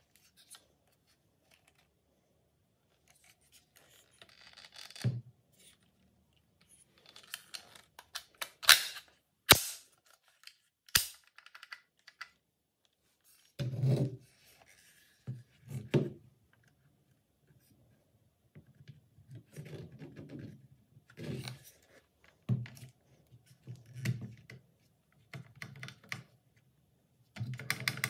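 Hand handling of a restored MP5-style submachine gun: sharp metallic clicks and clacks as its parts are worked, loudest around the middle, with knocks and rubbing as the gun is turned over on the table.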